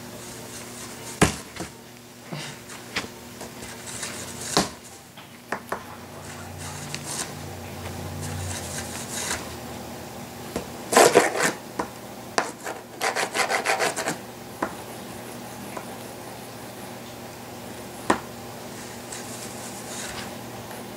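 Scratching, rubbing and sharp taps on a cardboard box, in irregular bursts, with a quick run of scratches a little past halfway.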